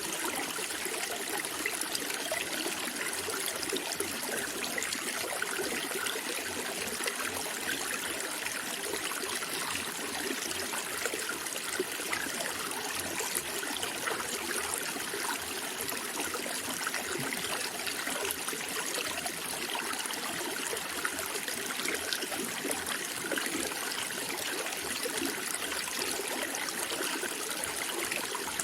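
Running water of a stream, trickling and babbling in a steady, unbroken flow.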